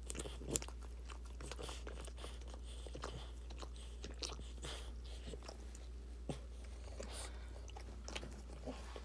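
Boston Terrier mother licking and chewing at her newborn puppy, a run of irregular wet smacks and clicks, over a steady low hum.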